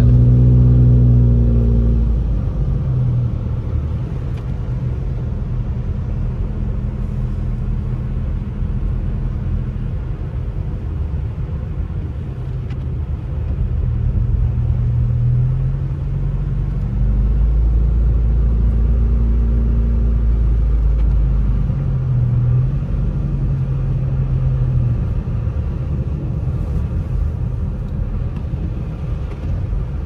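Inside a moving car: steady low engine and road rumble as it drives on a wet, slushy road, with the engine's hum swelling a few times.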